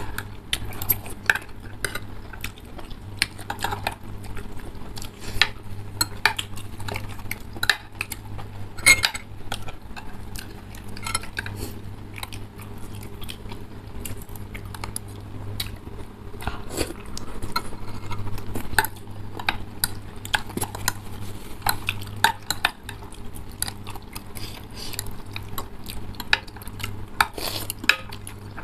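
Metal forks and spoons clinking and scraping against ceramic bowls, in many irregular sharp clicks, while soupy instant noodles are slurped and chewed.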